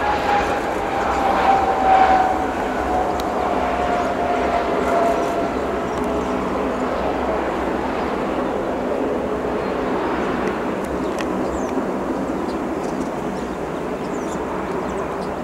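Twin rear-mounted turbofan engines of a business jet during its landing rollout. A steady jet rumble runs under an engine whine that falls slowly in pitch as the engines spool down.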